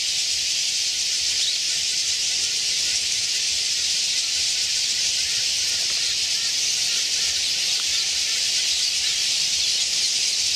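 A large flock of small birds chattering together, heard as a dense, steady high wash of overlapping calls with faint chirps.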